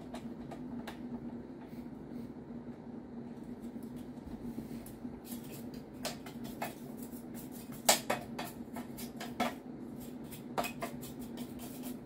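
Hands handling a sheet-steel network switch chassis and its fan: light clicks and knocks from about halfway through, with one sharper metal knock near eight seconds in, over a steady low hum.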